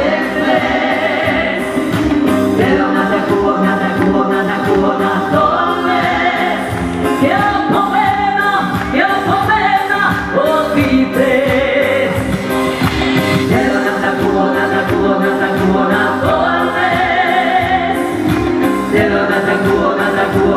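A woman singing a song into a microphone, amplified, over backing music with a steady beat.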